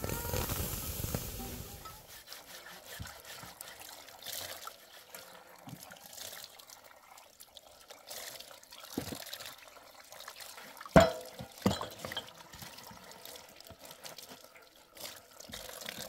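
Water trickling from a plastic water tank's tap into a metal washing basin as tea glasses are rinsed, with small knocks of glassware throughout. Two sharp knocks about eleven seconds in are the loudest sounds. A louder low rush fills the first two seconds.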